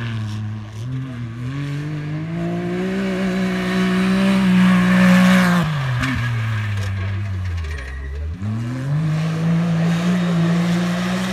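Side-by-side off-road buggy's engine being driven hard over loose dirt: the revs climb and hold high, fall away about six seconds in, then climb and hold high again. A rush of noise from the tyres and thrown dirt swells around the middle.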